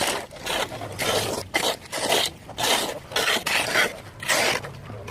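Repeated rough scraping strokes, roughly two a second and uneven in strength.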